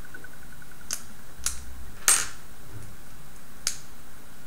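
Small plastic gearbox parts of a robot rover kit being handled and pressed together by hand: four sharp clicks, the loudest about two seconds in.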